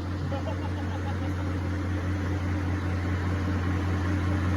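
Engine running steadily with a low, even hum, slowly growing louder.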